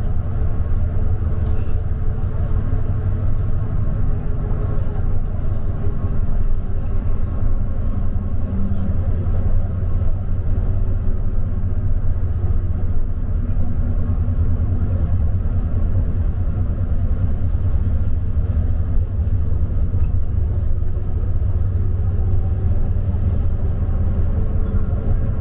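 Bus running along the road, heard from inside the cabin: a steady low rumble of engine and tyres.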